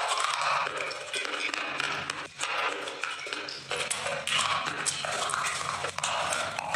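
Chewing and crunching of hard, brittle clay-like slabs, many short crackles, with a fresh bite near the end.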